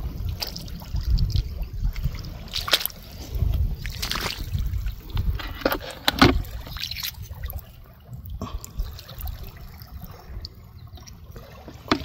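Shallow seawater sloshing and trickling over wet mud as a hand works in it and picks up a whelk, with a handful of sharp clicks and splashes from a few seconds in to about six seconds, over a steady low rumble.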